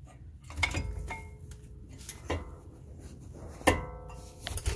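Metal knocks and clinks as a car's rear brake caliper is worked loose and slid off its pads and bracket: about half a dozen, some with a short metallic ring, the loudest a little before the end.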